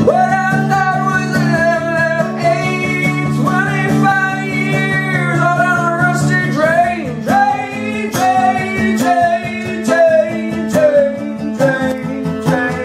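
A man singing a slow melody with long held notes over a strummed acoustic guitar.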